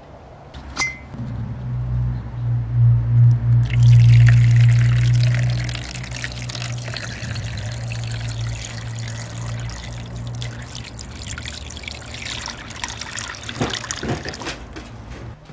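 Sodium hydroxide solution poured in a steady stream into a plastic tub, splashing over a rusty iron axe head as the tub fills. A low hum is loudest in the first few seconds, and the splashing stops shortly before the end.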